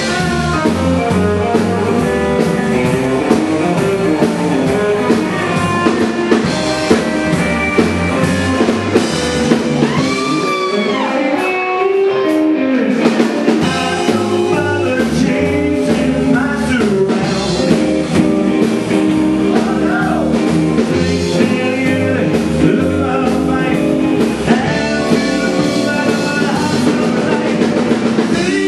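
Rockabilly band playing live: electric guitars, upright bass and drum kit, with a lead guitar line bending in pitch about ten seconds in, where the bass and drums drop out for a couple of seconds.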